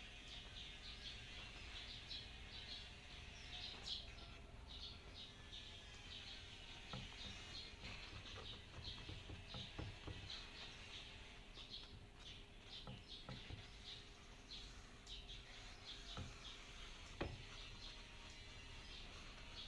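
Small birds chirping in quick, repeated short notes, with a few faint clicks or knocks now and then; the loudest click comes near the end.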